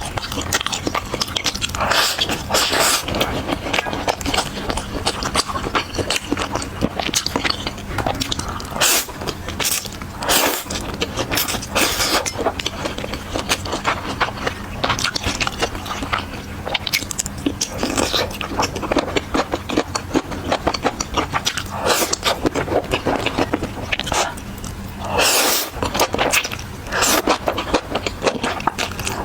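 Close-miked eating sounds: chewing with many small sharp clicks and smacks, and a steady low hum underneath.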